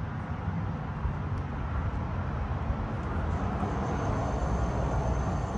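Steady low rumbling outdoor noise, with faint thin high tones joining about halfway through.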